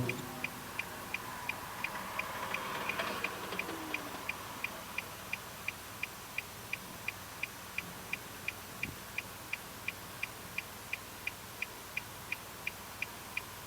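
Car turn-signal indicator ticking steadily, about three ticks a second, over a faint cabin hum.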